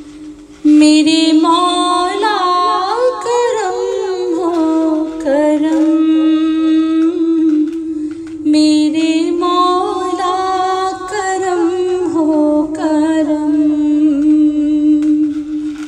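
A devotional prayer song: a voice sings long, ornamented phrases that slide up and down in pitch over a steady held drone, pausing briefly about a second in and again around the eight-second mark.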